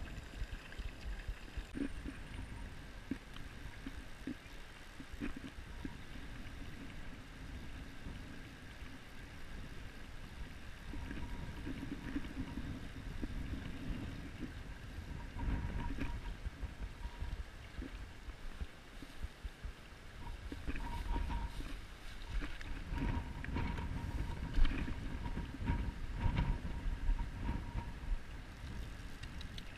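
Shallow river current running, with wind buffeting the microphone in uneven gusts that swell into low rumbles a few times.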